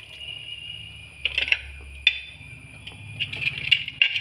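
A few light metal clinks and knocks of cookware being handled, coming in small clusters, over a faint steady hum.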